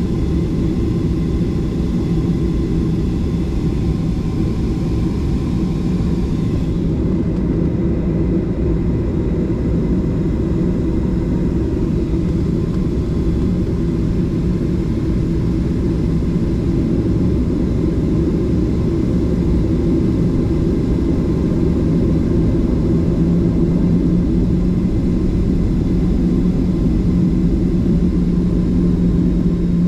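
Jet engines of a Boeing 737 heard from inside the passenger cabin: a steady, loud drone with a low hum. About seven seconds in the higher hiss falls away, and the low hum grows stronger near the end.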